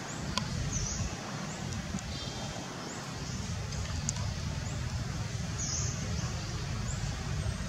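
Steady outdoor background noise with a low rumble, a couple of faint sharp clicks and faint high chirps recurring about once a second.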